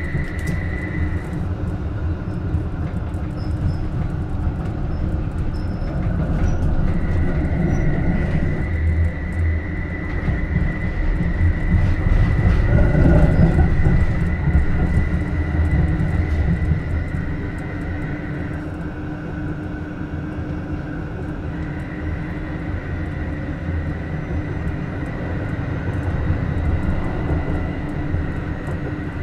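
Rhein-Neckar-Verkehr M8C-NF tram running, heard from inside: wheels rumbling on the rails under a steady high whine from its modernised inverter (VVVF) drive. The whine drops out twice for a few seconds, and the rumble is loudest about halfway through.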